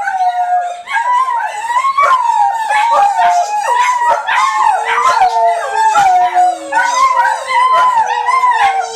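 Dogs howling together: several wavering, overlapping voices with short yips mixed in.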